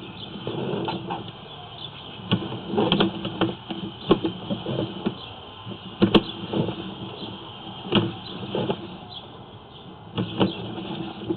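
Sewer inspection camera's push cable being drawn back through the pipe, with irregular knocks, clicks and scraping as the camera head and cable rub and bump along the line.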